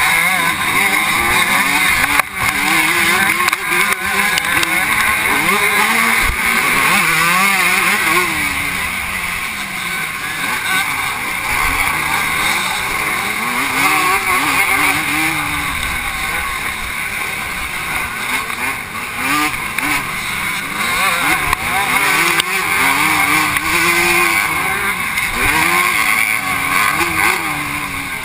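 Vintage 125 cc two-stroke motocross bike racing, its engine revving up and falling back again and again through shifts and corners, heard from a helmet camera with heavy wind rush on the microphone.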